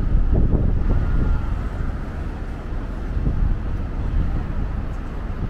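Low, steady rumble of city street traffic, a little louder in the first second or two, with wind buffeting the microphone.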